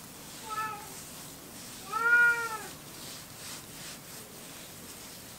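Young kitten, about six weeks old, meowing twice: a short soft meow about half a second in, then a louder, longer meow about two seconds in that rises and falls in pitch.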